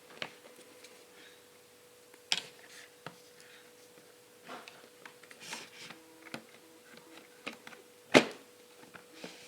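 Hands handling a smartphone and its packaging up close: scattered sharp taps and clicks with brief soft rustles, the loudest click about eight seconds in, over a faint steady hum.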